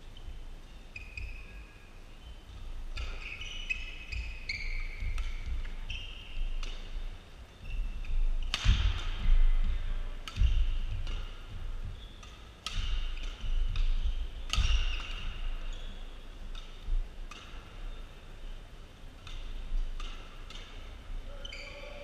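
Badminton rally: sharp racket strikes on the shuttlecock, with shoes squeaking on the court floor. The hardest hits fall in the middle stretch.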